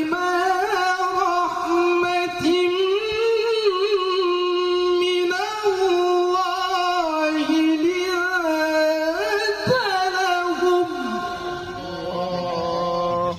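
A male qari reciting the Qur'an in melodic tilawah style: one long phrase held on a high pitch with rapid ornamental turns. It falls away about eleven seconds in to a lower held note, then cuts off abruptly.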